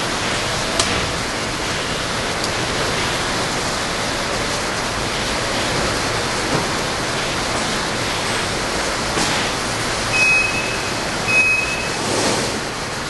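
Automatic mail-tray un-sleever machinery running with a steady, even rushing noise, with a few sharp clicks and two short high beeps about ten and eleven seconds in.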